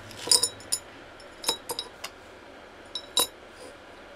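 Scraps of copper and silver dropping into a graphite crucible, a series of sharp metallic clinks that ring briefly, the loudest about a third of a second in and just after three seconds. The crucible is being loaded for melting the metal into shibuichi alloy.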